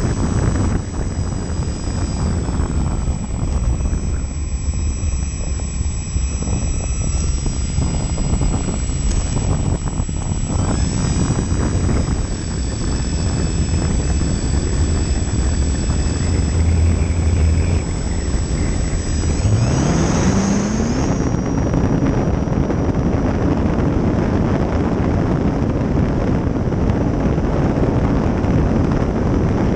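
E-flite Valiant 1.3m's electric motor and propeller running at low throttle, heard from on board the model plane, with rumble and hiss as it rolls along the runway. About two-thirds of the way in the motor's whine rises steeply in pitch as the throttle opens for takeoff, then holds high and steady under a rush of wind over the onboard camera's microphone as the plane climbs.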